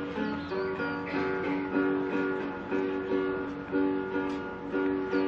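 Acoustic guitar strummed in a steady, repeating pattern.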